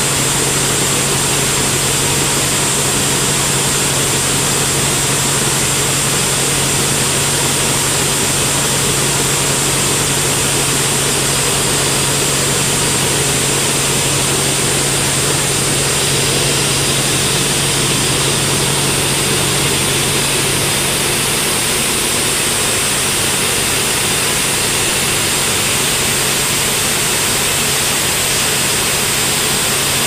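Band sawmill running with a steady, unchanging drone, a constant low hum under it and a thin high whine above.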